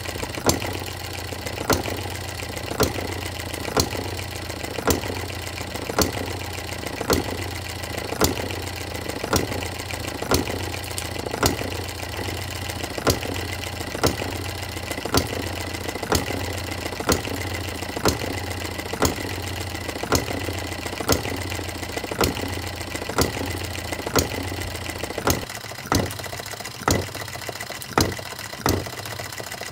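Scale-model Coles hit-and-miss engine running: a sharp firing bang about once a second, with lighter mechanical clicks between as the flywheels coast. The firing comes a little quicker near the end.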